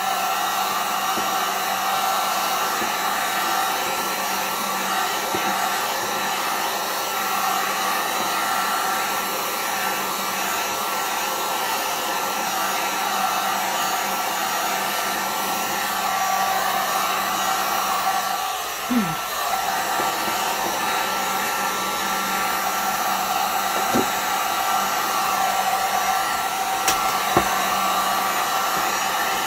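Handheld heat gun running continuously, its fan blowing hot air to dry wet acrylic paint: a steady whirring rush of air with an even motor hum.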